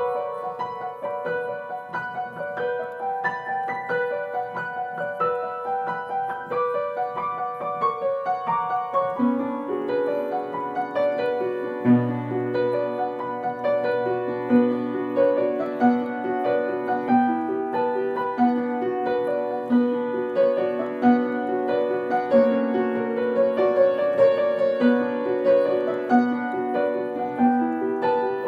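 Background piano music: a melody of single notes in the upper range, joined about nine seconds in by a lower line of repeated notes.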